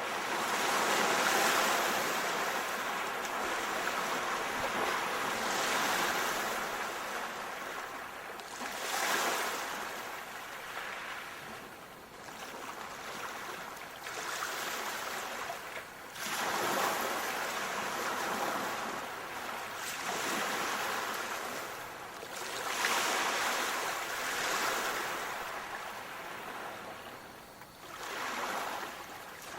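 Sea waves washing in and drawing back, each wave a surge of hiss that swells and fades, about one every three to six seconds.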